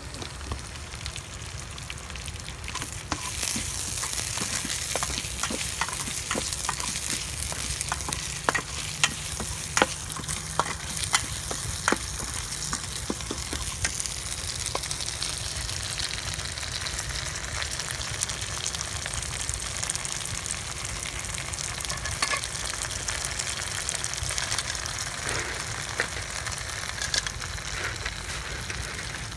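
Curry paste sizzling as it fries in a stainless steel pan, stirred with a metal spatula that scrapes and clicks against the pan. There is a run of sharp clicks about eight to thirteen seconds in.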